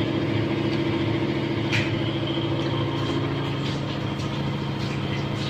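Power generator (genset) running steadily as backup power during a power cut, a constant low engine hum. A few light clinks of a metal spatula against the wok come over it.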